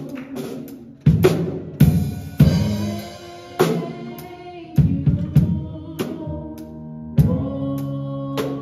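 Live instrumental of an electric keyboard holding chords under an acoustic drum kit playing accents and fills on kick, snare and cymbals. A cymbal crash rings on for about a second early in the passage.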